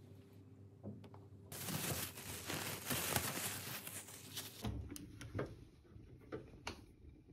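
Plastic wrap crinkling and rustling for about three seconds as it is gathered up. After that come a few light knocks and clinks of items being handled in an open refrigerator, over a low hum.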